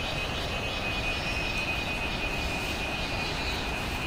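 River rushing, a steady even noise with no breaks, with a thin high whine held steady over it.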